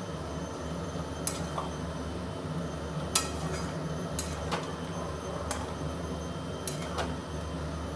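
A utensil stirring chicken rezala in a cooking pot, with scattered sharp clinks of the utensil against the pot over a steady low hum.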